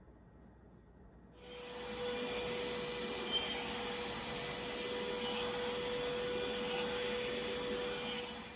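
Roidmi X30 Pro cordless vacuum with the extension hose and pet brush attached, switched on in eco mode about a second and a half in. It runs steadily with a constant whine, then stops at the end.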